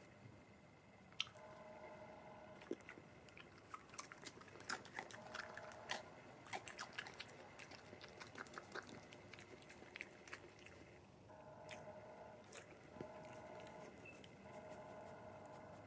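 A European badger eating chips off a concrete slab: quick, faint chewing and crunching clicks, busiest in the middle and thinning out near the end as it moves away.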